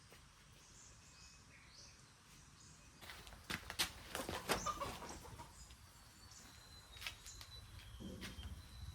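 Chickens clucking, with a burst of sharp knocks and clatter around the middle, the loudest part.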